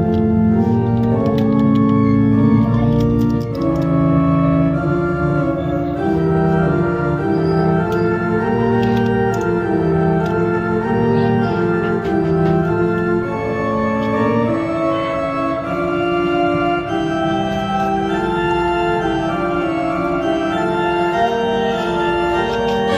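Background music: held chords that change every second or so, with no speech.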